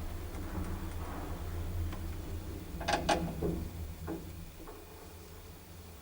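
Old Otis traction lift, modernised by Ampco, running with a steady low hum, with a few sharp clicks about three seconds in. The hum dies away about four seconds in, leaving it much quieter.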